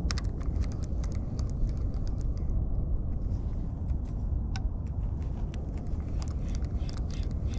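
Steady low outdoor rumble with many light, irregular clicks and ticks over it.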